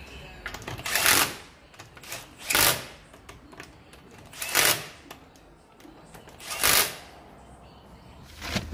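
Impact wrench hammering the car's wheel fixings tight in four short bursts, about two seconds apart, as the road wheel is refitted.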